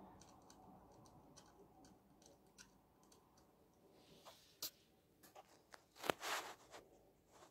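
Near silence, broken by scattered faint clicks and a short rustle about six seconds in: small handling sounds of a finger at the sprung buffers of a Hornby OO gauge Class 60 model locomotive.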